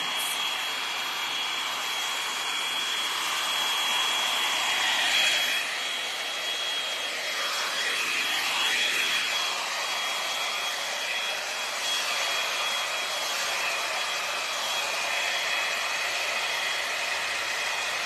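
L'ange Max Volume hot air brush running steadily on her hair: the rush of blown air with a high, steady motor whine over it, swelling a little now and then as the brush is moved.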